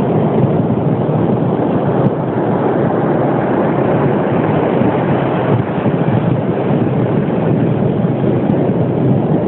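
Loud, steady rushing of wind on the microphone, mixed with beach surf.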